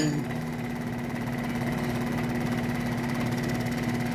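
Wen scroll saw running steadily, its motor humming and fine blade reciprocating fast, just after a new blade has been installed and re-tensioned. A sharp click comes right at the start.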